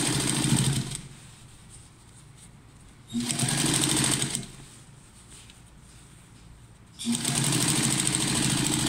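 Electric sewing machine stitching in three short runs with pauses between: one stopping about a second in, one of about a second and a half near the middle, and one starting about seven seconds in. The needle is running back along a seam that is already sewn.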